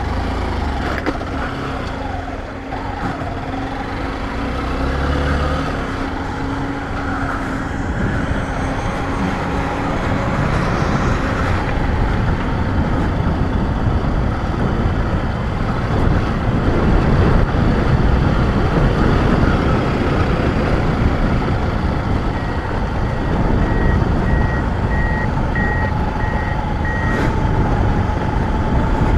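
Motorcycle riding steadily along a road, its engine and road noise running without a break. About three-quarters of the way in comes a short run of evenly spaced high beeps.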